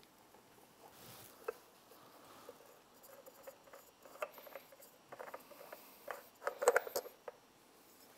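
Spin-on oil filter being unscrewed by hand and lifted off an outboard engine over a paper towel: faint, scattered clicks, scrapes and rustling. A louder cluster of clicks and rustle comes about two-thirds of the way through.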